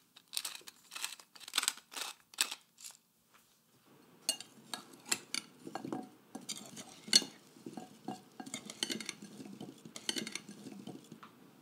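A pepper mill grinding over the bowl in a quick series of short turns for the first three seconds. Then, from about four seconds in, a metal spoon tossing potatoes in a glass bowl, clinking and scraping against the glass.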